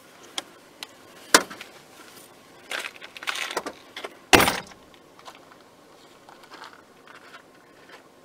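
A few sharp knocks and clicks with some rustling, heard in a vehicle cabin. The loudest come about a second and a half in and again just past four seconds, with a cluster of smaller clatters around three seconds.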